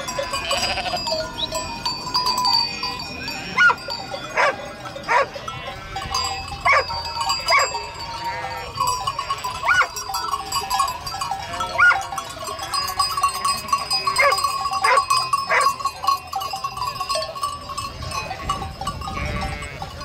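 Sheep in a flock bleating again and again, short wavering calls from several animals, over a steady ringing tone.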